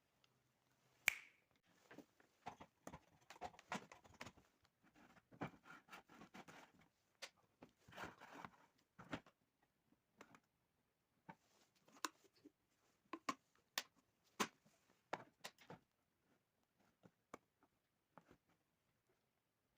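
Irregular small clicks, taps and short scraping rustles of an electric kettle being handled, with one sharp click about a second in. The noises grow sparser toward the end.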